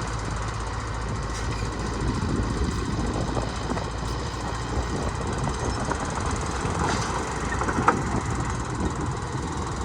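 Komatsu bulldozer's diesel engine running steadily under work, with a few brief high metallic squeaks and a sharp clank about eight seconds in.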